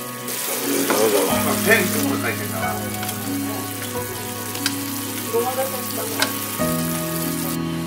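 Yellowtail pieces simmering in soy-based sauce in a pan, the sauce bubbling and sizzling steadily while a spoon bastes them, with a couple of sharp clinks from the spoon against the pan. Soft background music with held notes plays underneath.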